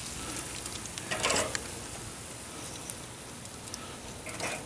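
Sauced country-style pork ribs sizzling on a hot grill grate, a steady crackling hiss, with a short louder noise about a second in.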